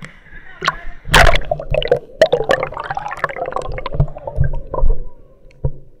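Water sloshing and gurgling around an action camera's waterproof case as it dips into a pool and goes under, with a loud splash about a second in and scattered knocks.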